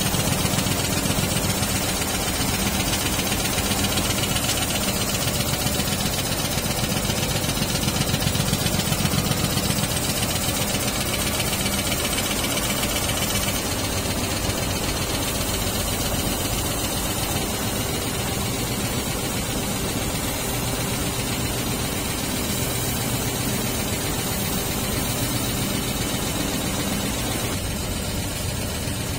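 Richpeace multi-needle quilting machine running, its rows of needles stitching through the quilt in a fast, even mechanical clatter.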